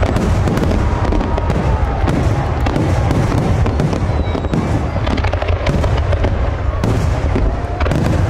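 Fireworks display: many aerial shells bursting in quick, overlapping succession, making a continuous din of booms and crackling with no gaps between bursts.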